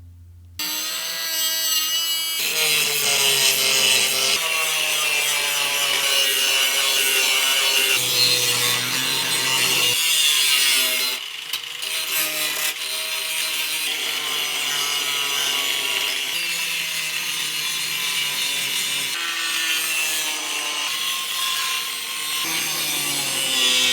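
Power tool cutting and grinding rusted car-frame steel, with the motor's pitch sliding up and down as it loads and unloads. The sound comes in short pieces that change abruptly every few seconds.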